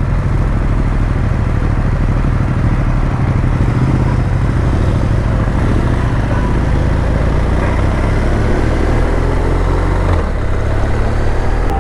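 Motorcycle cruising at highway speed: a steady engine note under a constant rush of wind and road noise. The engine note shifts slightly about ten seconds in.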